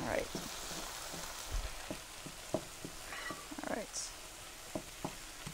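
Diced onions and bell peppers sizzling as they sauté in a skillet, with a utensil tapping and scraping against the pan a dozen or so times.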